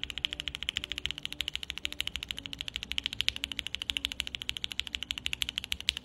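Fast typing on a mechanical keyboard with freshly lubed switches, about ten keystrokes a second, as a sound test of the lubed switches.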